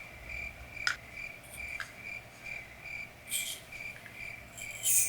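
A cricket chirping steadily, short high chirps about twice a second. A few light clicks and two brief hisses from a product being handled sound over it, the second hiss, near the end, being the loudest.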